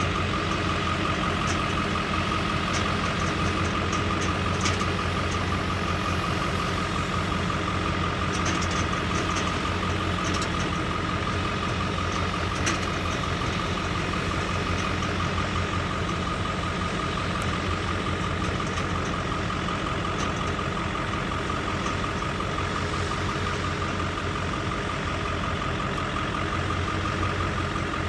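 Corn silage harvesting machinery running steadily: a continuous engine drone with a steady high whine over it and a few faint clicks.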